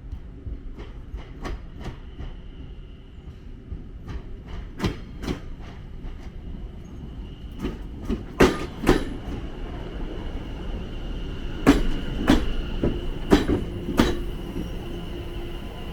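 Train wheels clacking over rail joints and points, sharp clicks often in pairs, louder from about halfway through, over a low rumble and a faint steady whine.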